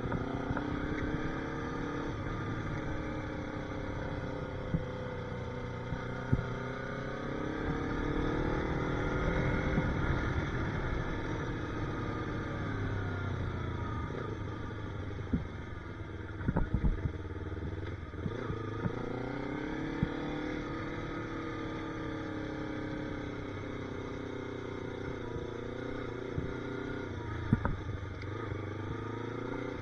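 Yamaha YZF-R3's parallel-twin engine running as the bike is ridden at low speed, its pitch rising and falling several times as the rider accelerates and eases off. A few sharp clicks come around the middle and near the end.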